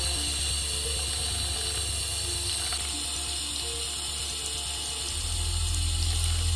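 Thin stream of tap water running steadily from a faucet and splashing over a fingertip, a continuous hiss. Soft background music plays under it.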